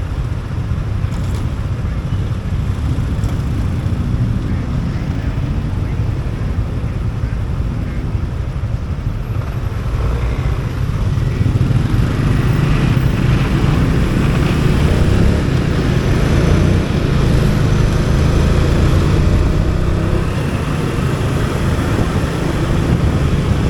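Motorcycle engine running while riding through city traffic, a steady low drone that grows louder about halfway through.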